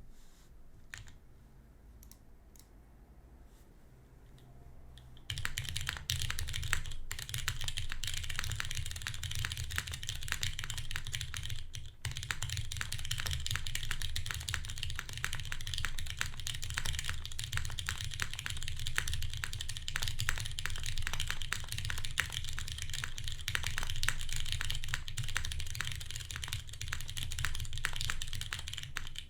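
Fast continuous typing on a custom mechanical keyboard with lubed Cherry MX Brown switches, a carbon fiber plate and GMK keycaps, a deep, bassy keystroke sound. A few isolated key presses come first, then steady rapid typing starts about five seconds in, with a brief pause near the middle.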